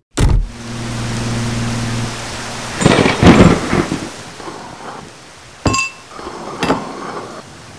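Rain sound effect starting suddenly and falling steadily, with a loud rumble of thunder about three seconds in. A low steady hum sits under the rain for the first few seconds, and two sharp clicks come near the end.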